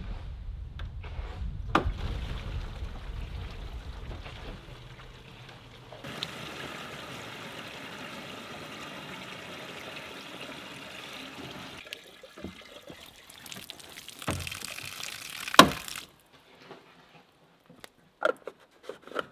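Rainwater pouring from the valve of a plastic IBC tote into a 7-gallon plastic water jug, a steady rush that changes as the jug fills, then water splashing freely from the valve. Near the end the flow stops with one sharp clack as the valve is shut.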